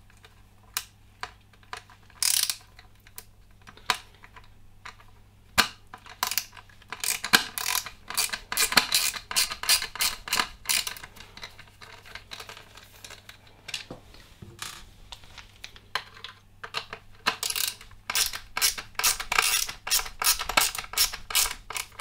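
Small Phillips screwdriver turning out the screws under the battery pack of a Dyson V11 cordless vacuum, giving a run of small clicks. The clicks are few and spaced out at first, then quick and busy from about six seconds in.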